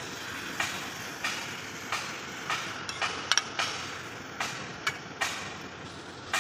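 Metal ladle scraping and knocking against a steel kadai as chicken curry is stirred, a sharp clack every half second to a second with a quick cluster about midway, over a steady hiss.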